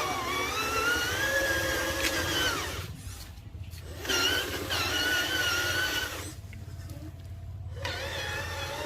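Small electric motor and gearbox of a radio-controlled toy dump truck whining, its pitch rising and falling with the throttle. It runs in three spells, with pauses about three and six and a half seconds in, over a steady low hum.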